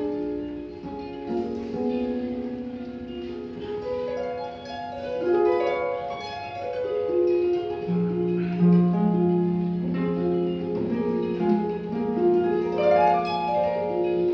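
Pedal harp played solo: a flowing line of plucked, ringing notes. About halfway through, a low bass note comes in and rings on beneath the melody.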